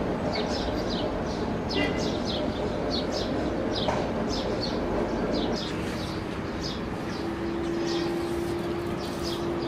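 Small birds chirping over and over against a steady background noise; a steady low hum comes in a little past the middle.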